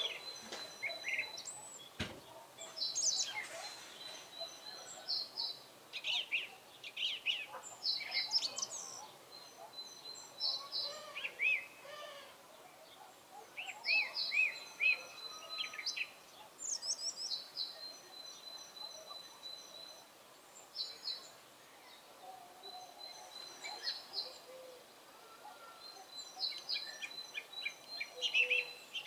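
Song thrush singing: varied short whistled phrases, several of them repeated three times in a row before the bird moves on to the next.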